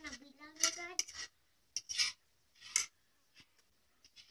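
Metal forks scraping and tapping on plates, in a few short scratches with light ticks between. A child's voice sounds briefly in the first second.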